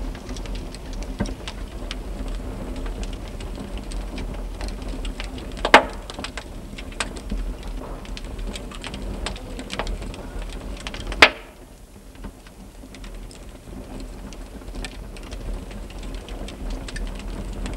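Wood fire crackling as the logs burn, with a constant patter of small crackles and two loud pops, about six and eleven seconds in.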